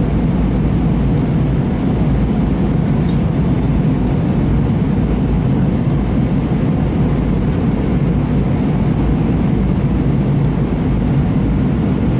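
Steady cabin noise of an Airbus A320 airliner in flight, heard from inside the passenger cabin: an even, low rumble and rush of engines and airflow, unchanging throughout.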